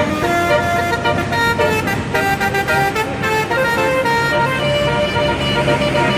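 Indonesian bus telolet horn, a multi-tone air horn, playing a quick tune of stepped notes that change several times a second without pause.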